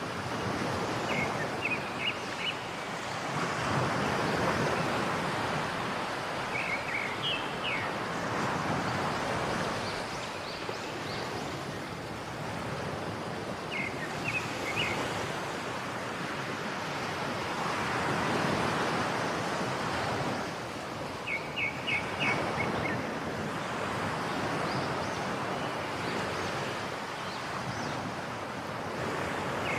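A bird calling in short bursts of three or four quick high notes, repeated every seven seconds or so. Behind it runs a steady rushing noise that swells and fades in slow waves.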